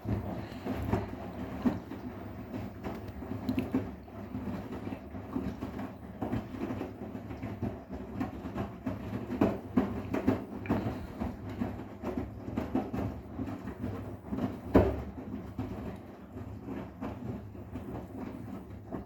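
Arçelik 10121 washing machine running a wash, the drum turning and the load tumbling with irregular knocks over a steady motor hum, one knock louder than the rest about fifteen seconds in.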